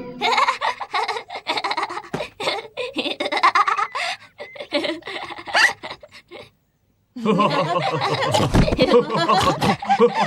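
Cartoon characters laughing together in short, broken bursts. After a brief silence about two-thirds of the way in, the laughter comes back louder and denser.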